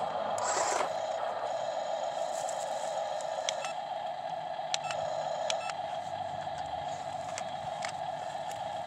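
Steady mid-pitched whine of small electric motors and gearing in radio-controlled construction models, with a few light clicks partway through.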